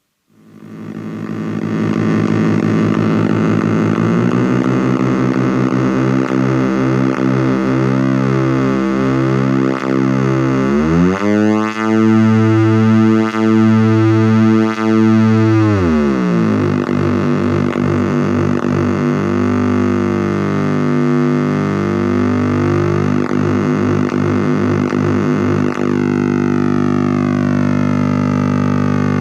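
Dirty Drone Defrost handmade drone synthesizer playing one pair of frequency-synced square-wave oscillators with an offset, heard in one stereo channel only: a raw buzzing drone whose tones beat and shift against each other. The drone fades in at the start, glides up in pitch about a third of the way through, drops back a few seconds later, and sweeps downward near the end.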